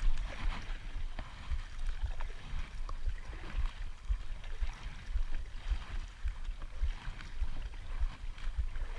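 Wind buffeting the microphone in irregular low gusts, with water lapping and splashing against a kayak hull.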